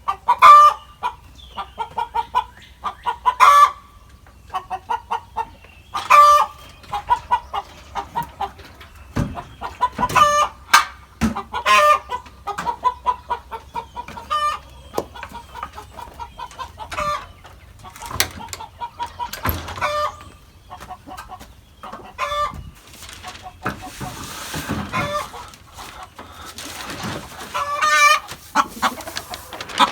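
Chicken hens clucking and squawking in short repeated calls throughout, with a few sharp knocks in between.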